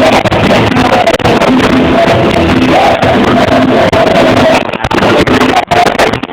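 Loud live worship music with long held notes, recorded overloaded and distorted.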